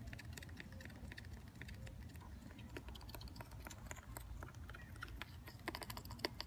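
Jerusalem cricket scrabbling inside the plastic dust cup of a Shark Navigator vacuum cleaner, its legs making faint, irregular clicks and ticks against the plastic that come quicker and louder near the end.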